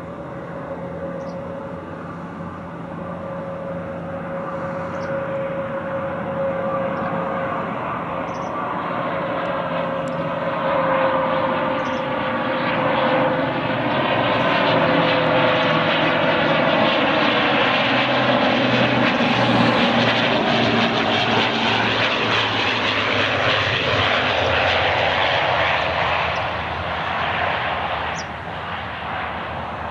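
Fokker 50 twin-turboprop airliner on landing approach, its engines and propellers running. A steady whine slowly drops in pitch while the noise grows louder as it comes closer. It is loudest past the halfway point and eases a little near the end.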